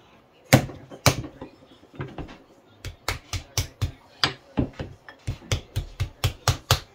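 Wooden paddle slapping a block of clay to square it up for a kurinuki box, in a series of sharp smacks. Two hard blows come near the start, then a quicker run of about four a second from about three seconds in.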